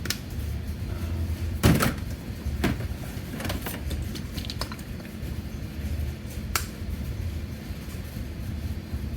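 Scattered clicks and taps of plastic paint bottles and cups being handled, the loudest about two seconds in, over a steady low hum.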